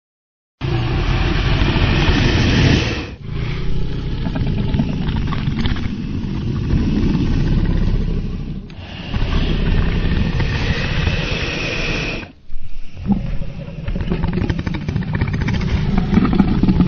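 Dragon roar sound effect: a series of long, rumbling, growling roars, each lasting several seconds, with short breaks about 3, 9 and 12 seconds in.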